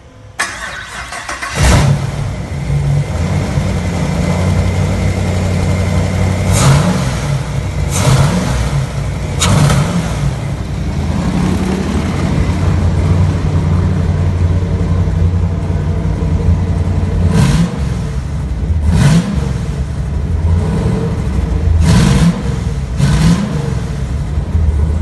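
Freshly swapped-in GM LS V8 cranks briefly on the starter and catches a little under two seconds in. It then idles and is revved in short blips about seven times.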